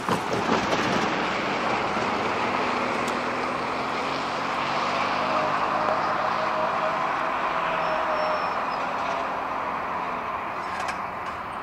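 BNSF diesel locomotive leading an intermodal train as it approaches: engine running and train noise coming up sharply at the start, then holding steady.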